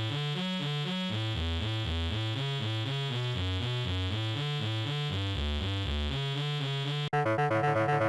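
Electronic synthesizer music: a fast run of short pitched notes over a stepping bass line, switching abruptly to a denser, louder pattern about seven seconds in.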